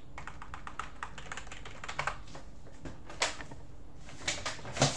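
Typing on a computer keyboard: a quick run of light key clicks, with a few harder keystrokes in the last two seconds.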